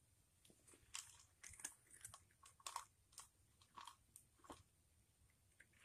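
Near silence, with faint, scattered soft clicks and rustles through the middle.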